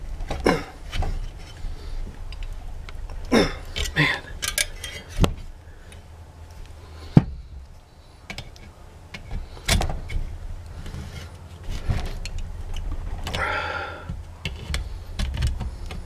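Steel pliers clinking and scraping against the thin sheet-metal clips and cover of a microwave magnetron as the clips are bent out: irregular metal clicks and knocks, with one sharp knock about seven seconds in, over a low steady hum.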